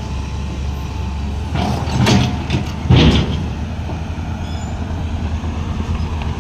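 Heavy diesel engine running steadily, with two brief louder surges of noise about two and three seconds in.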